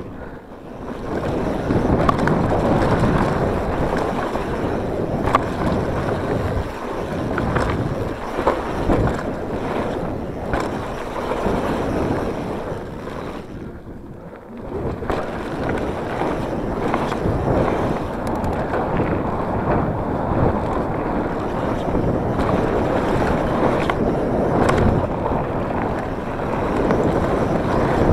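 Mountain bike riding fast down a dirt forest trail: wind rushing over the camera microphone and tyres rolling over dirt, with scattered knocks and rattles from the bike over bumps. The noise drops briefly about fourteen seconds in, then picks up again.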